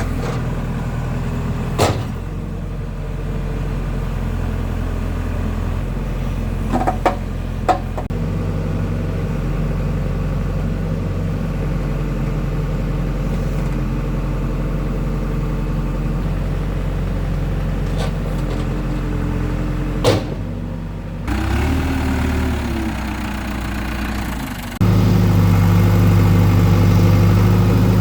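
Engine of a digging machine running steadily while scooping, with a few sharp knocks and clanks of the bucket, then speeding up louder about three seconds before the end.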